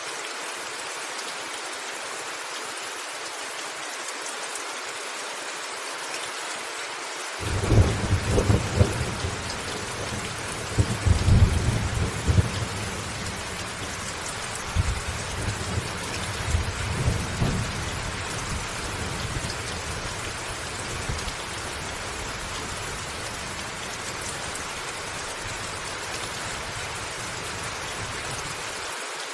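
Steady rain pattering on a roof. About seven seconds in, a thunderclap breaks into a long rolling rumble with several loud peaks, then dies away over the next twenty seconds.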